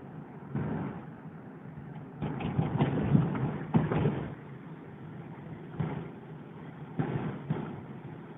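Vehicle driving on a rough road, heard from inside the cabin: a steady engine and road noise. Louder bursts of noise come about half a second in, for about two seconds from two seconds in, and again near six and seven seconds.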